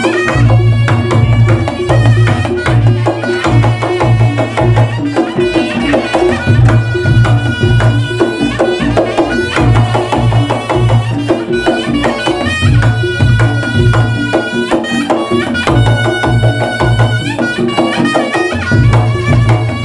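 Reog Ponorogo gamelan music: kendang drums playing fast, busy patterns under a wavering, high reed melody, with deep gong tones booming at regular intervals.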